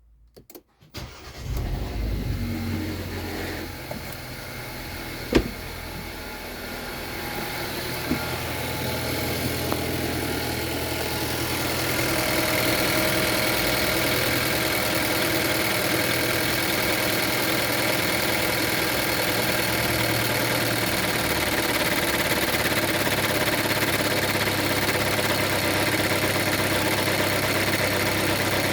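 Geely Coolray engine starting about a second in, then idling steadily, with one sharp click a few seconds later. The running sound grows louder and fuller after about twelve seconds. The owner takes it for an extraneous noise from the engine.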